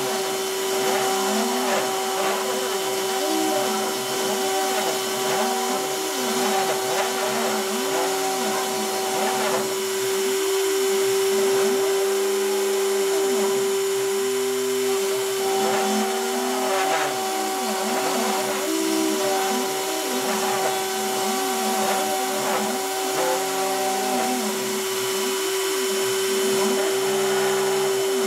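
C-Beam CNC machine with a handheld rotary tool as its spindle, engraving cardboard: the rotary tool runs at a steady high hum while the axis motors sing in short pitches that rise and fall again and again as the carriage speeds up and slows down along the cut.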